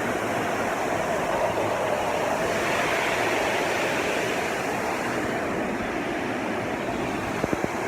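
Waterfall rushing steadily, with a few light knocks near the end.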